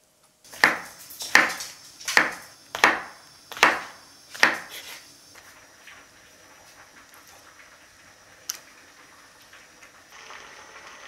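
Chef's knife cutting down onto a wooden cutting board, six even cuts about three-quarters of a second apart, followed by faint handling and a single light click.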